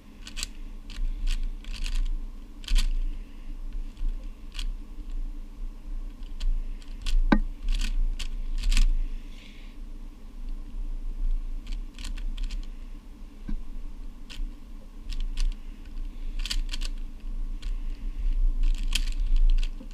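YJ Guanlong 3x3 speedcube turned by hand, its plastic layers clicking and clacking as they snap round, in quick clusters of turns with short pauses between.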